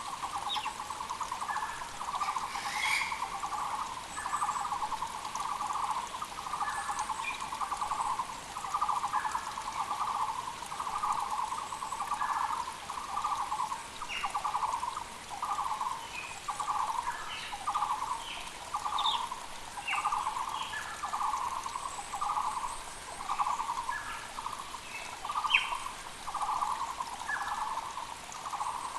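Muller's barbet calling over and over: a loud, rapid trilled phrase repeated about once a second. Short chirps of other birds break in above it, over a faint hiss of the creek.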